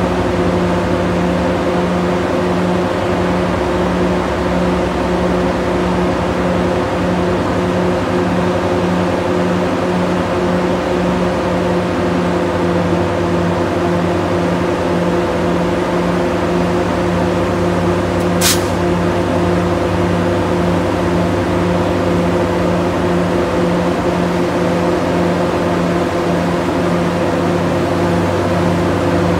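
NJ Transit ALP-45DP dual-mode locomotive standing with its diesel engines running, a loud, steady hum with a few steady tones. A single sharp click about 18 seconds in.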